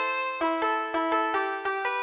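Cumbia villera keyboard melody: a synthesizer lead plays held notes that step from pitch to pitch. Short percussive ticks run beneath it at about four a second.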